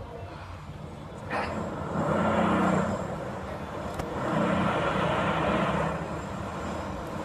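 Road traffic: two vehicles pass one after the other, each a swell of engine and tyre noise lasting about two seconds, over a low steady hum.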